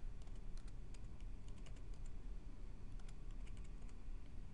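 Light, scattered clicks of a computer keyboard and mouse over a low, steady hum.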